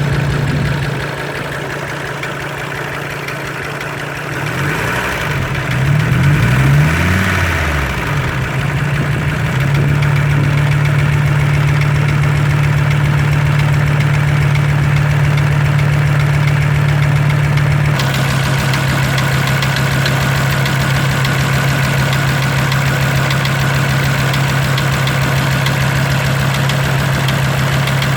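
Audi 100 C3 2.0 turbodiesel engine (code DE) running with a rhythmic knock from inside the engine. It is revved up and back down a few seconds in, then settles to a steady idle.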